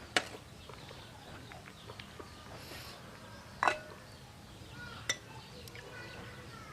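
Three sharp clinks of kitchenware, the loudest a little past halfway, over faint chirping of birds and chickens.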